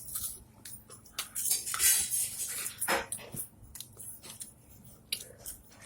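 Plates and dishes knocking and clattering in a string of short clicks and scrapes as food is eaten off them with the mouth, hands kept behind the back.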